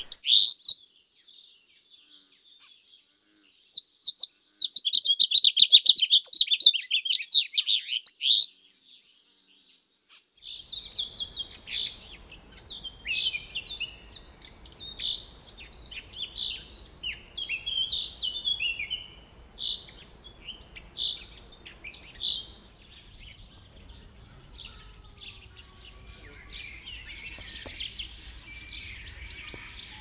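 Small songbirds singing: a fast, loud trilling song a few seconds in, then after a brief pause a run of varied high chirps and whistles, with a denser chorus of calls near the end.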